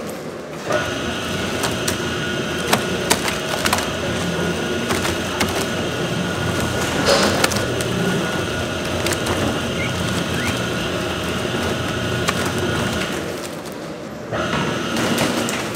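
Kimchi-factory floor noise: steady machinery hum with a few constant tones, broken by scattered sharp knocks and clatter.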